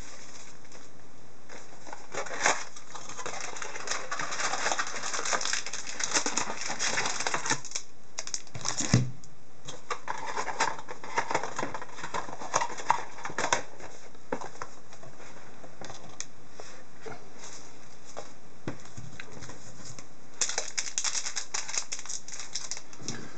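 Crinkling, rustling and clicking of plastic wrapping, cardboard and hockey card packs being handled as a card box is opened and its packs set out. It comes in bouts with quieter gaps, and there is one knock about nine seconds in.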